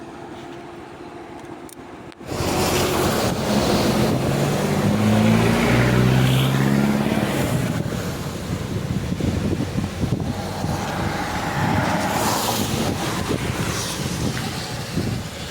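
Motor vehicle engine and road noise: after a quieter first two seconds, the sound jumps suddenly to a loud engine drone that shifts in pitch for a few seconds, then settles into steady road and wind noise.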